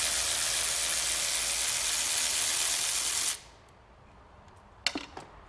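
A loud, steady hiss that cuts off suddenly about three seconds in, followed by a single sharp click near the end.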